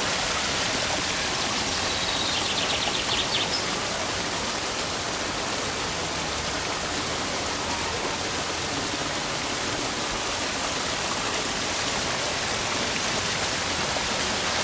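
Steady rush of running water, a stream or small waterfall, with a short, rapid, high trill about two to three seconds in.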